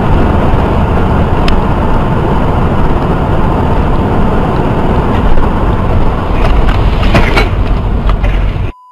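Loud, steady road and wind noise of a moving vehicle, with a sharp crack about a second and a half in and a few knocks around seven seconds in.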